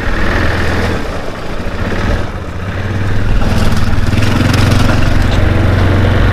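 Yamaha Grizzly 450 quad bike engine running. It dips a couple of seconds in, then settles into a steady, louder run from about three seconds in.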